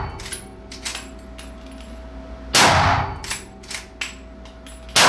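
Strasser RS 14 Evolution Tahr straight-pull bolt-action rifle in 7mm Remington Magnum fired: one shot about two and a half seconds in and another at the very end, each ringing in the range. Between the shots come sharp metallic clicks as the straight-pull bolt is worked.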